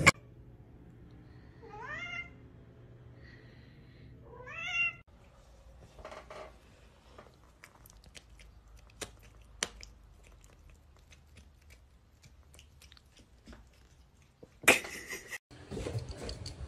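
A cat meowing twice, each meow rising and then falling in pitch. Faint scattered clicks and taps follow, and a short loud noise comes near the end.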